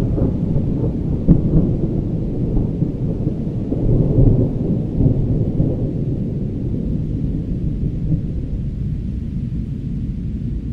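Rolling thunder, a long low rumble that swells about a second in and again around four seconds, then slowly fades.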